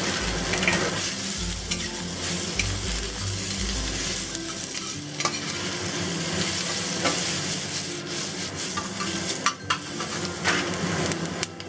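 Black fungus, carrots and garlic sizzling in hot oil in a pan while being stir-fried, with scattered sharp clicks and pops from the spatula and the fungus spattering in the oil.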